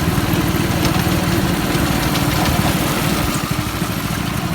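Go-kart's small single-cylinder engine running steadily.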